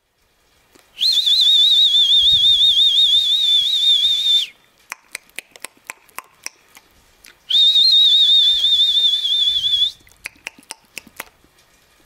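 A whistle blown in two long, warbling blasts of about three and a half and two and a half seconds, a call that brings the chickens running. Short sharp clicks come between the blasts and after the second.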